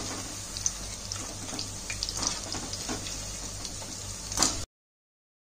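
Onion bhajiya deep-frying in hot oil in a steel kadhai: steady sizzling, with a few sharp clinks of the wire spider skimmer against the pan as the fritters are turned. The sound cuts off abruptly near the end.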